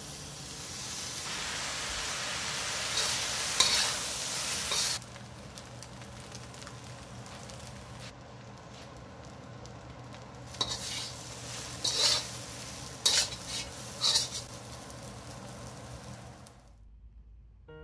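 Fried rice sizzling in a hot wok while a metal spatula stirs and scrapes it. The sizzle is loudest in the first few seconds, as soy sauce goes in, then settles to a steadier, lower hiss broken by several sharp spatula scrapes, and stops shortly before the end.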